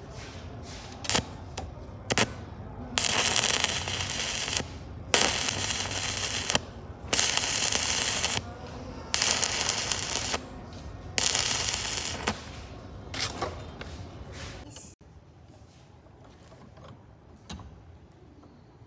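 Stick (shielded metal arc) welding arc crackling and sizzling in five runs of about a second each with short pauses between them, preceded by a few sharp clicks; the crackle stops well before the end.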